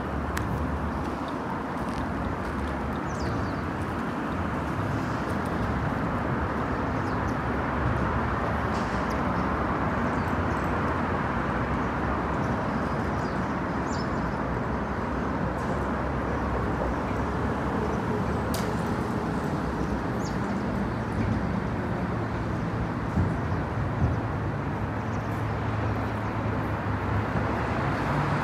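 Steady hum of road traffic, with a few faint, brief high chirps here and there.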